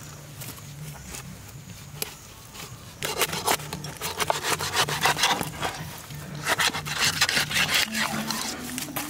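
A knife sawing and scraping through a giant stingray's tough skin and flesh: rough, rapid strokes that start about three seconds in and carry on, loudest in a burst of strokes near the middle and again toward the end.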